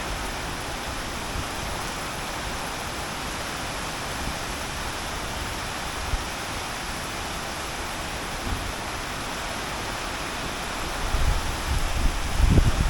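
Heavy rain falling steadily with a constant hiss. Wind gusts buffet the microphone with low rumbles, growing stronger near the end.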